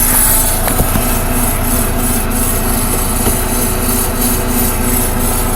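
Key-cutting machine's motor running steadily with a pulsing hum, and a few light clicks as a key blank is set into the machine's vise.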